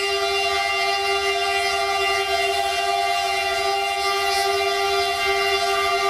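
Siemens EuroRunner diesel locomotive's horn sounding one long, unbroken multi-tone blast, with the low rumble of the approaching locomotive underneath.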